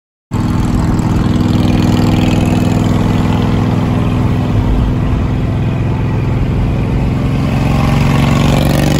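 Cruiser motorcycle engine running steadily as it rides alongside a car, heard with road noise; it cuts in suddenly after a brief silence and its pitch rises slightly near the end.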